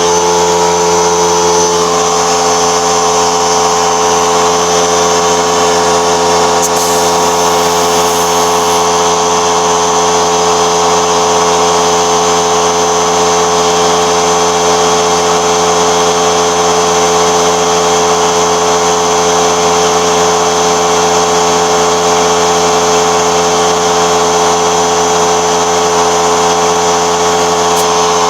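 A motor-driven machine running steadily, a constant hum made of several held tones, with a short hiss about seven seconds in.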